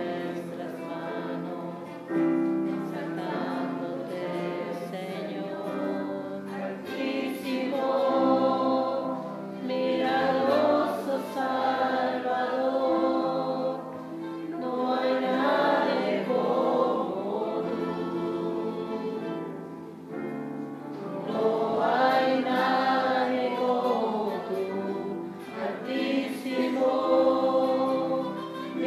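A congregation singing a worship song together in phrases over steady held chords.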